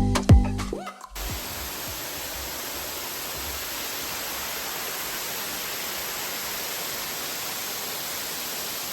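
Music with a heavy beat cuts off about a second in. A steady rush of falling water from a waterfall follows, even and unbroken.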